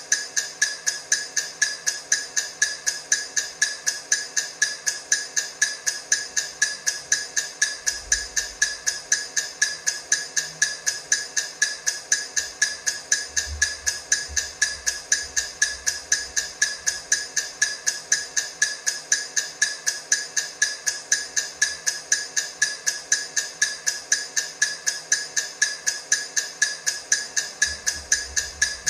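Countdown timer ticking: quick, perfectly even clock-like ticks, with no change in pace or loudness.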